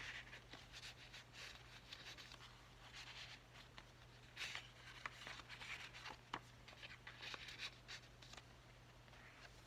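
Faint rustling and light taps of paper pages, tags and cards being handled and turned in a handmade paper journal, with a few sharp little clicks, over a steady low hum.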